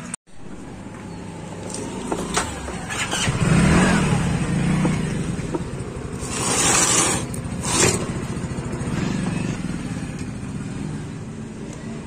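A motor vehicle's engine running close by, swelling louder and fading twice. Over it come a few sharp clicks and scrapes of a long steel screwdriver working at the screws behind a washing machine's plastic drive pulley.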